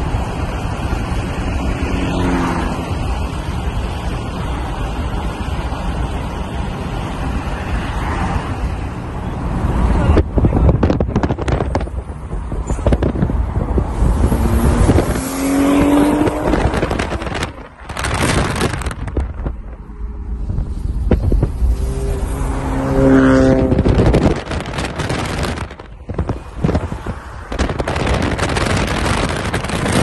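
Turbocharged sports cars driving fast, heard from a moving car, with heavy wind noise on the microphone. Engine notes swell and rise in pitch three times as the cars accelerate.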